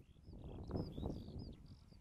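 Small birds giving short, high chirping calls, over a louder low, rough noise that swells in the middle and fades again.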